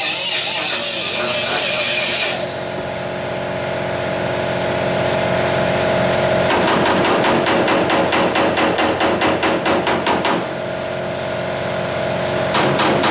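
An angle grinder runs on the sheet-metal door and cuts off about two seconds in. Then come two runs of quick, even hammer blows on sheet metal, with a steady hum underneath.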